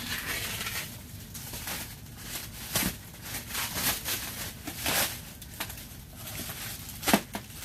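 The plastic wrapping on a pallet being cut down one side and pulled at: irregular crinkling and rustling with a few sharper rips, the loudest near the end.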